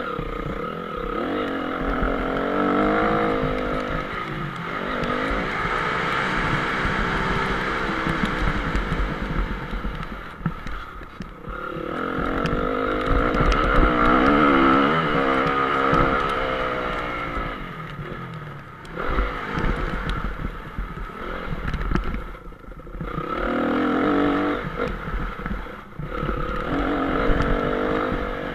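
Honda CRF 250 four-stroke single-cylinder motocross engine heard onboard, revving up through the gears and dropping off again and again, with several sharp falls in pitch and level where the throttle is shut for jumps and corners.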